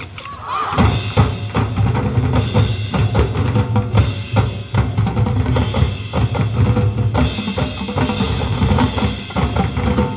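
High school marching band playing, with the drumline's bass drums and snares striking hard under sustained brass chords.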